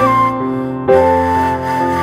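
Background music: gentle piano-like keyboard melody over a sustained bass, notes changing about once a second.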